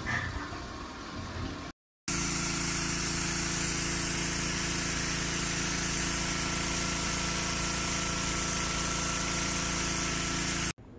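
Pressure washer running steadily: a constant machine drone with fixed low tones under the hiss of the spray jet. It starts after a brief gap about two seconds in and cuts off just before the end.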